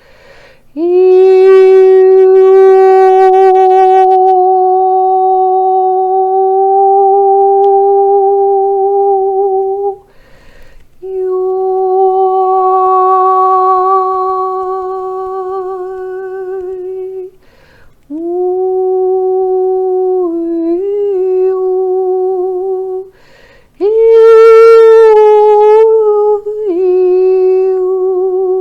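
A woman's voice toning long wordless held notes with a slight vibrato: four sustained tones of several seconds each, mostly on the same pitch, the last one starting higher and stepping down. This is light language toning, part of a channelled activation.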